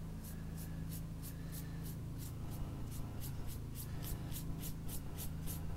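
Large watercolor paintbrush swished across paper in quick repeated strokes, a soft brushing swish about three times a second, over a steady low hum.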